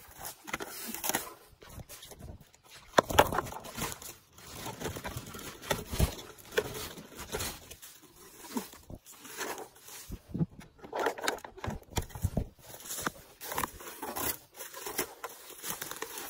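Footsteps in rubber boots through forest undergrowth, with leaves, ferns and twigs rustling and crackling in irregular bursts.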